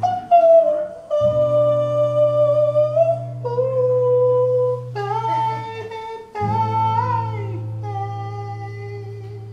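A singer holding long sung notes over strummed guitar chords; the last chord rings and slowly fades over the final few seconds.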